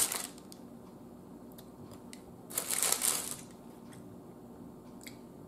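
Paper bag crinkling, briefly at the start and again in a louder burst about two and a half seconds in, with a few faint ticks between.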